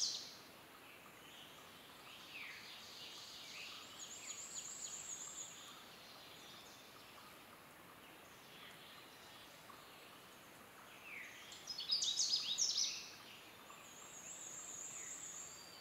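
Canada warbler singing: the end of one rapid, jumbled warbling song right at the start, and another full song of about a second and a half around twelve seconds in. Fainter songs of other birds run underneath, including a high wavering trill.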